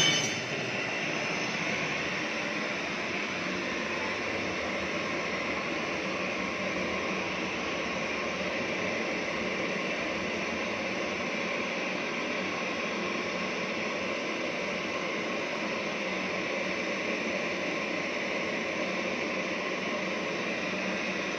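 Gas brazing torch flame hissing steadily while a charging valve is brazed onto a refrigerator's refrigerant line.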